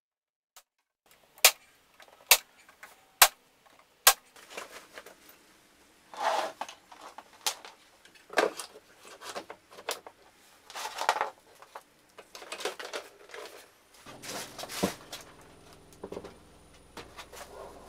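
Tacwise brad nailer firing four sharp shots, each under a second apart, driving brad nails into a wooden shelf lip. Then knocks and rustling as a track saw is handled and set down on its wooden shelf, and a low steady hum starts near the end.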